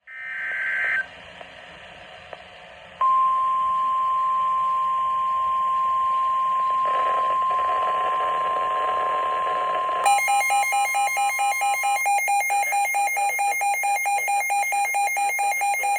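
NOAA Weather Radio alert signal on a Midland WR120 weather radio, announcing a severe thunderstorm warning. It begins with about a second of buzzing SAME data burst and a short pause with static hiss. The steady 1050 Hz attention tone then sounds from about three seconds in. Around ten seconds in, the radio's own alarm takes over, beeping about four times a second.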